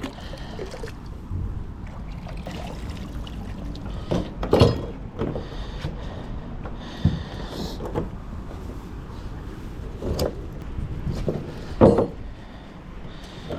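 A few sharp metallic knocks and clanks as a magnet-fishing magnet and its wet, pulled-up metal find are handled, over a low steady rumble with water trickling. The loudest knocks come about four and a half seconds in and near the end.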